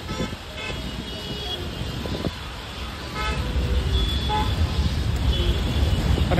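Road traffic on a wet city road, with several short horn toots. A low rumble grows louder about three seconds in.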